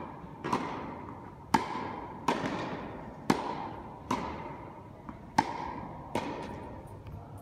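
Tennis rally: a ball struck by rackets and bouncing on the court, about seven sharp pops roughly a second apart, each with a long echo from the hall.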